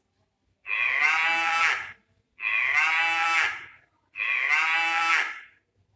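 Recorded cow mooing: three similar long moos in a row, each about a second and a half, with short pauses between them.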